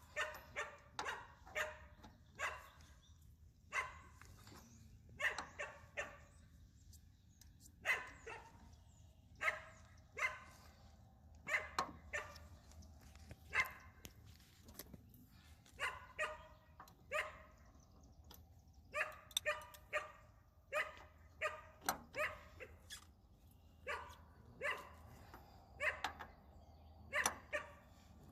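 A dog barking over and over, in runs of several short barks with pauses of a second or two between runs.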